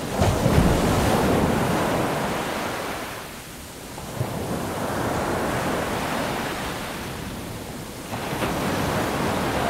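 Ocean surf: waves washing in and drawing back as a rush of noise that swells, eases about three seconds in, and builds again.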